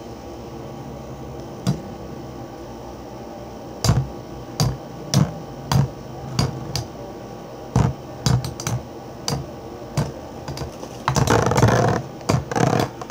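Two Beyblade spinning tops in a plastic stadium, clacking against each other in a string of sharp hits from about four seconds in, with one lone click before that. Near the end comes a denser rattling clatter as one top tilts over, losing its spin.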